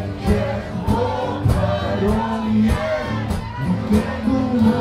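Live sing-along: a group of voices singing together over a strummed acoustic guitar, with a steady beat.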